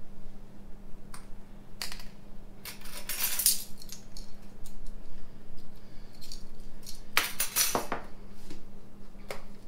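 Kitchen handling sounds: a small spice jar being opened and worked over a bowl, with metal measuring spoons clinking on the counter. The loudest is a cluster of clinks about seven seconds in, as the jar and spoons are set down.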